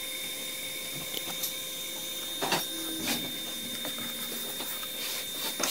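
Hands pressing and smoothing a strip of blue painter's tape onto a 3D printer's metal bed: faint rubbing with a few soft taps spread through, over a steady background hiss.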